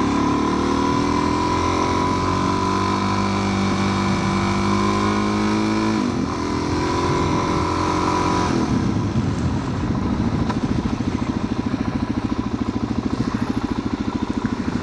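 Motorcycle engine running on the move, seen from the rider's seat: its pitch climbs as it accelerates, holds steady for several seconds, then about two-thirds of the way in drops to a lower, rapidly pulsing note.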